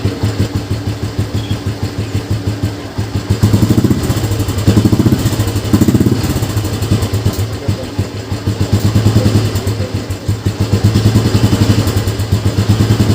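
Old Royal Enfield Bullet's single-cylinder engine running with a steady beat, the throttle opened up several times. It is running just after a points and ignition-timing adjustment; starting and running cleanly at the right throttle is the sign that the timing is correct.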